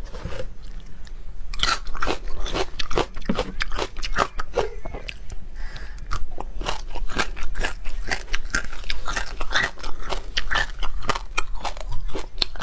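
Close-miked eating sounds: biting into and chewing raw prawns, a dense run of sharp, irregular crunches and clicks.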